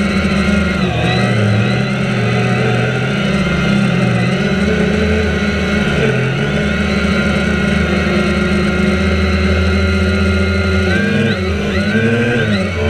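Drone's motors and propellers buzzing steadily, several pitches layered together; near the end the pitch swoops up and down as the motors speed up and slow down.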